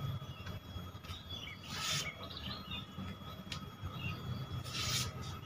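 Sheet of paper rustling and being sliced by a katana blade, heard as two short, crisp swishes about two seconds and five seconds in. Faint bird chirps sound in between.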